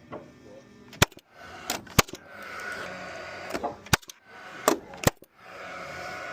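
Framing nail gun firing about five sharp shots at uneven intervals, with a steady hum between them.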